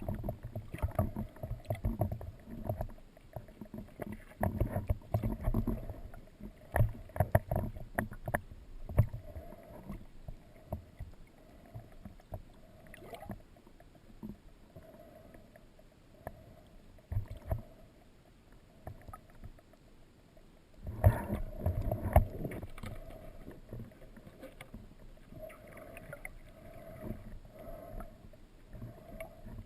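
Muffled water movement and irregular knocks and clicks, heard through a waterproof action-camera housing while spearfishing. The sounds thin out in the middle, then grow denser and louder about two-thirds of the way through.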